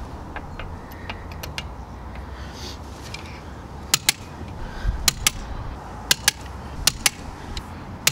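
Socket wrench being worked on a caravan's wheel bolts to check that they are tight: sharp metallic clicks, small ones at first, then louder ones in close pairs about once a second.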